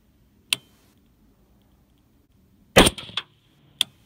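A single rifle shot from a .223 AR-15 fitted with a muzzle brake, a little under three seconds in, trailed by a short echo. A sharp click comes about half a second in and another just before the end.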